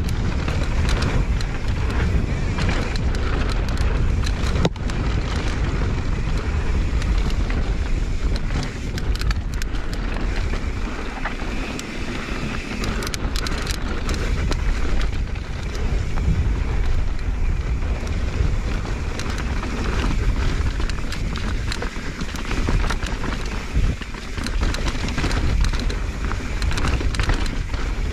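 Mountain bike riding on a dry dirt singletrack: knobby tyres rolling over dirt and the bike rattling over small bumps, with wind rushing over the camera microphone.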